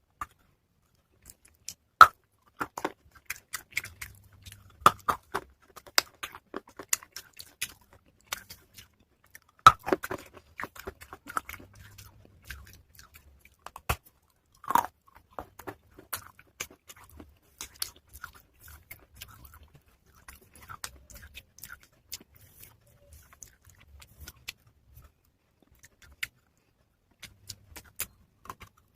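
Close-miked chewing and crunching of soaked pieces of a baked-clay matka pot: irregular crisp crunches and clicks, with the loudest bites about 2, 10 and 15 seconds in.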